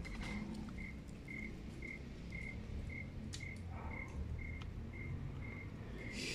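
A cricket chirping steadily outdoors at night, about two short chirps a second, over a low rumble.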